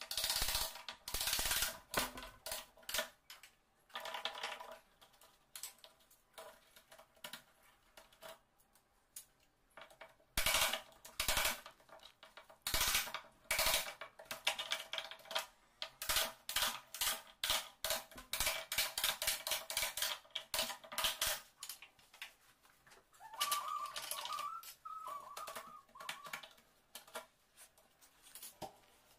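Steel wood chisel cutting a lock mortise into the edge of a wooden door, giving rapid, irregular sharp cracks and taps as the blade chops and levers out wood, sped up. Near the end there is a short wavering high tone.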